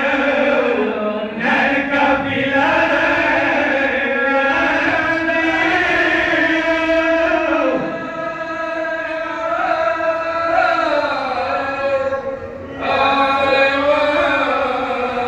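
A male zakir chanting a Pashto Shia lament (noha) in long drawn-out, wavering notes that glide up and down. There is a brief break for breath about twelve seconds in.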